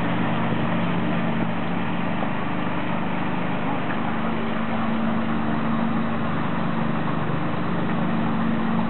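Motor ship MS Stockhorn's single 265 kW diesel engine running at the pier, a steady low hum whose note shifts about four seconds in.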